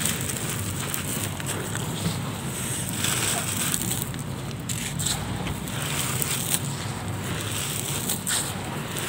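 Hands crushing and crumbling dried blocks of gritty grey concrete-and-sand mud: a steady gritty crackle as grit and powder sift through the fingers.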